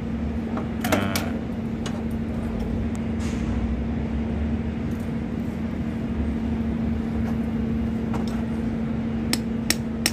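Steady mechanical hum over a low rumble from machinery running nearby. A few sharp metallic clicks come near the end as hand tools work on the panel's cable lugs.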